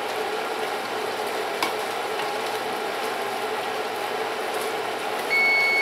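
Pot of pasta boiling in broth, a steady bubbling hiss, with a few light clicks of a silicone spatula as it is stirred. Near the end the electric range's timer goes off: one steady high beep about a second long, signalling the cooking time is up.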